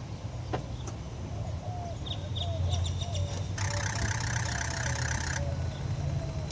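Engine being cranked on a repeated attempt to start it, without catching. There is a click about half a second in, a steady low rumble, and a harsh buzzing stretch in the middle.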